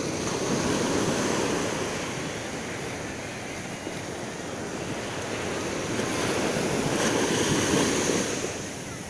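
Sea waves washing onto a beach, the surf swelling louder about a second in and again about seven seconds in.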